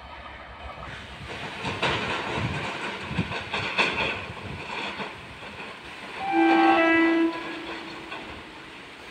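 An approaching electric train's horn (a WAP7 locomotive) sounds once, about six seconds in: a brief higher note, then a lower note held for about a second. Before it come a few seconds of rushing noise with some knocks.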